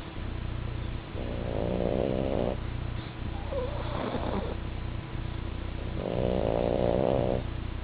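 Pug and French bulldog snoring in their sleep: two long snores of about a second and a half each, one about a second in and a louder one about six seconds in, with softer snuffling breaths between, over a steady low hum.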